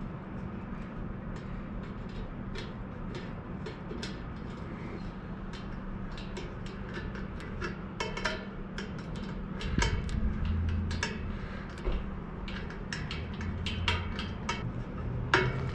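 Light metallic clicks and clinks of bicycle spokes and rim being handled during a spoke replacement on a mountain bike wheel, irregular and growing busier near the end, over a steady low background hum.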